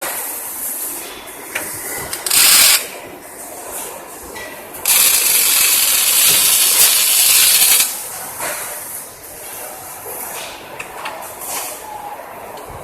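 Welding hissing and crackling in bursts: a short loud burst about two seconds in, then a long one of about three seconds from five seconds in, with quieter crackling hiss in between.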